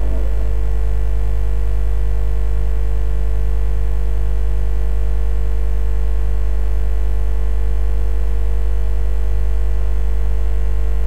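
A steady low electrical hum, unchanging, with a few faint steady higher tones above it.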